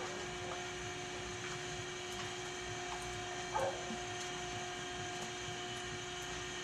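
Steady electrical hum over a low background hiss, with a few faint clicks and one brief sound about three and a half seconds in.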